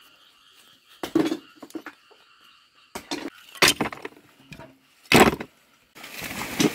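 Broken shards of cement sheeting dropped and tossed into a plastic basket, clattering and clinking in several separate hits, the loudest about five seconds in. Near the end a steady outdoor hiss takes over.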